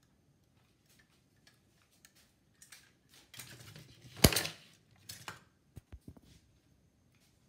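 Quiet, scattered light clicks and a brief rustle, with one sharp click about four seconds in and a few smaller clicks after it.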